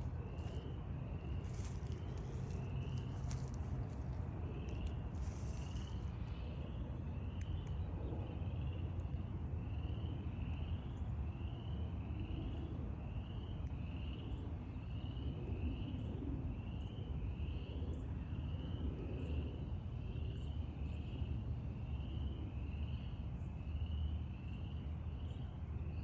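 A calling animal outdoors gives a short, slightly rising high chirp over and over, about three every two seconds, over a steady low rumble, with a few handling clicks in the first few seconds.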